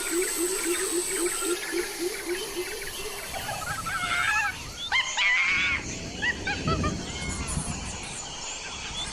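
Forest animal calls: a low call repeated about four times a second for the first three seconds, then assorted whistling, chirping bird calls.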